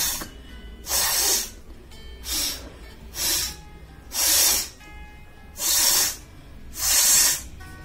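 Repeated forceful breaths of air through the nose, about one a second, each a short rush of air lasting around half a second.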